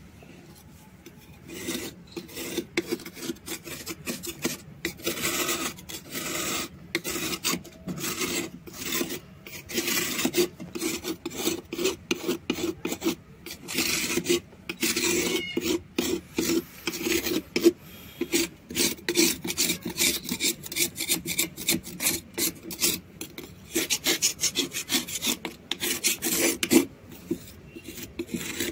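Knife blade scraping a large block of soft white shale stone in repeated rasping strokes, shaving off flakes and powder. The strokes begin about a second in and turn quicker and shorter in the second half.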